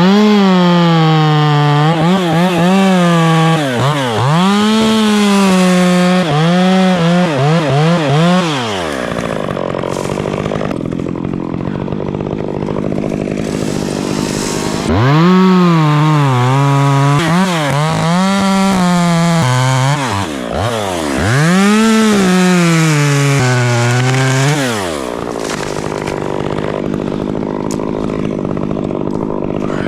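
Stihl two-stroke chainsaw running at high revs and revving up and down repeatedly in two long bouts, typical of cutting wood. A steady rushing noise continues between the bouts and after them.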